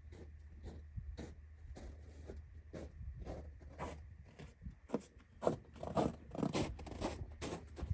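A quick, irregular run of short scraping and rubbing strokes from hands working on wiring, growing louder and busier in the second half, over a steady low hum.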